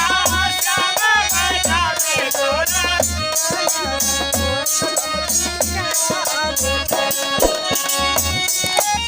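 Instrumental intro of a North Indian folk song (malhar): a steady deep drum beat with shaker-like rattle percussion under a lead melody whose notes slide up and down.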